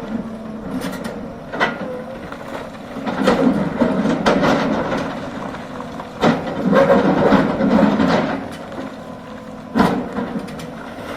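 Hydraulic excavator working: the diesel engine runs under load while the bucket scrapes through rock and soil in two long rough stretches, with a few sharp clanks of metal on rock.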